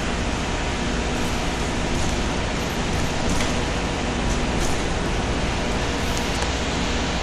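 Steady rumble and hiss of a moving vehicle: road and tyre noise.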